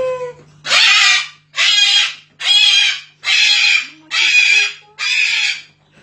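A white cockatoo screeching: six loud, harsh screeches at about one a second, after a short falling call at the very start.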